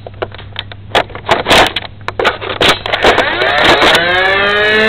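Scattered knocks and clicks, then a motorized Nerf blaster's flywheels revving up: a whine that rises in pitch about three seconds in and then holds steady.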